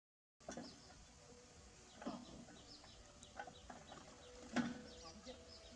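Faint outdoor ambience with scattered short, high bird chirps and a few light knocks, after a brief silent gap at the start.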